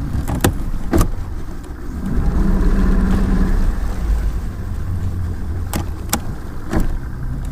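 A boat's motor running with a steady low rumble that swells for a second or so a couple of seconds in, then eases off. A few sharp knocks come through it.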